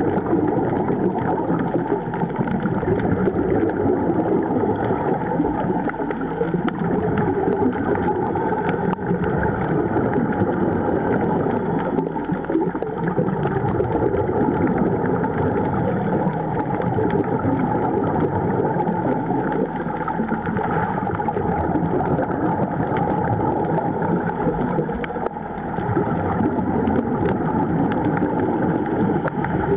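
Steady, muffled underwater rushing and bubbling from a diver's exhaled air bubbles, breathing from a surface-supplied air hose regulator.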